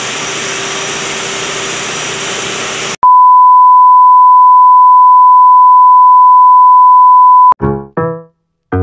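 Steady engine-room noise from a ship's running main engine, which cuts off abruptly about three seconds in. A loud, steady, high-pitched beep replaces it and holds for about four and a half seconds. Near the end, a few short pitched notes begin.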